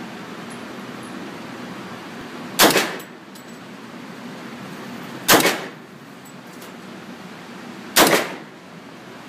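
Heckler & Koch UMP45 submachine gun in .45 ACP firing three single shots, evenly spaced about two and a half seconds apart, each with a short echo from the indoor range.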